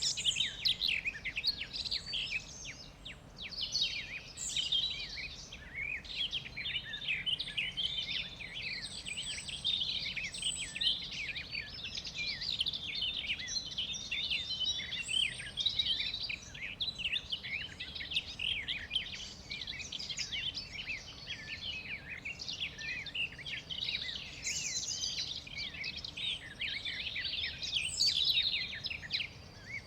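Forest birds chirping and singing, many at once in a dense, continuous chorus of quick high chirps and trills over a faint background hiss.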